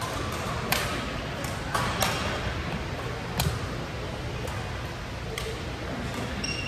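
Badminton rally in doubles: rackets striking the shuttlecock, sharp cracks about once a second, with a short squeak near the end.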